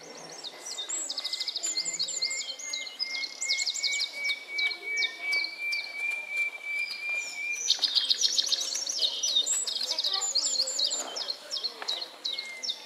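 Birdsong played as a stage sound effect: many small birds chirping and twittering, with one long steady high note held through the first half and the chirping growing denser just past the middle.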